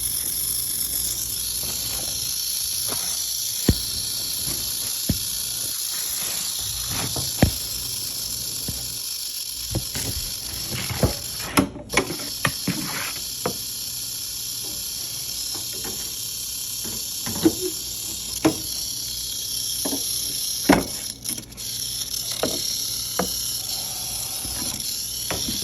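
Canebrake rattlesnake rattling: a steady high buzz, with scattered short knocks and bumps throughout.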